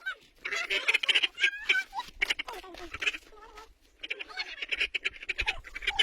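Birds calling in several bursts of rapid, repeated notes.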